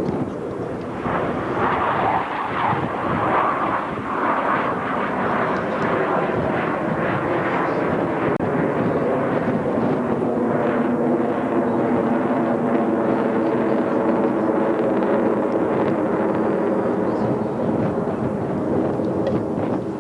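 Formation of US Navy F/A-18 Hornet jets flying past: continuous jet engine noise, with a steady engine tone showing through in the second half.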